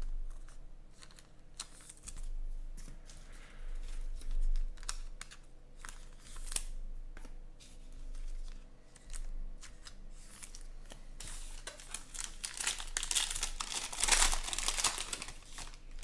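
A trading-card pack wrapper crinkling and tearing as it is handled and opened, with scattered light rustles and clicks, densest and loudest near the end.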